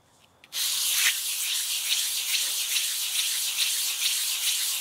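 Sharpening stone scrubbed back and forth on kerosene-wetted 240-grit wet-and-dry paper over a glass plate, flattening the stone's face. It starts abruptly about half a second in as a loud, steady hiss with a faint pulse on each stroke.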